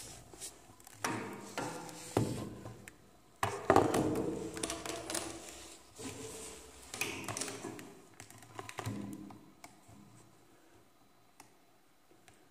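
A run of irregular knocks and taps, each followed by rustling, loudest about three and a half seconds in and dying away after about ten seconds.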